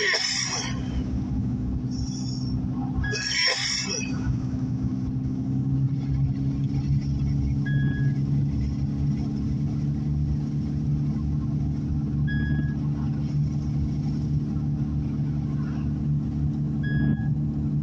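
Steady low drone of a car's engine and tyres heard inside the cabin while driving. There are two brief bursts of hiss in the first few seconds, and three short high beeps about four and a half seconds apart in the second half.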